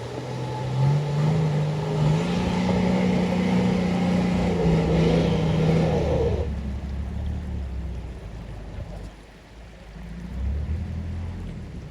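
Toyota 60 Series LandCruiser's engine revving hard under load, its pitch climbing in steps, with a loud rushing noise over it. About six and a half seconds in, the engine drops back to a lower note, then revs up briefly again near the end.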